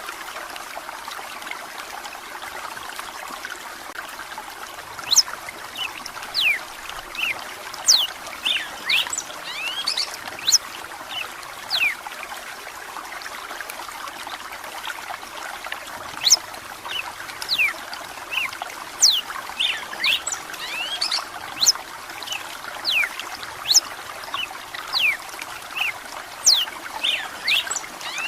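Steady running water, with a red-cowled cardinal joining in about five seconds in and singing on and off: quick, sharp whistled notes that sweep steeply in pitch, loud over the water.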